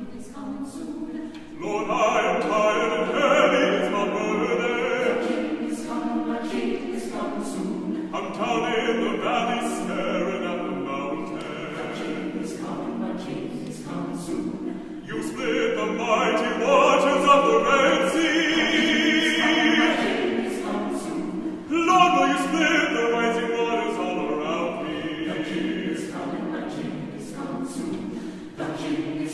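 A choir singing slow, sustained low chords, with a baritone soloist singing long phrases with vibrato over them.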